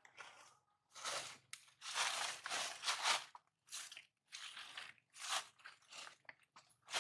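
Irregular crunching in short bursts, densest and loudest from about one to three seconds in, then shorter, sparser crunches.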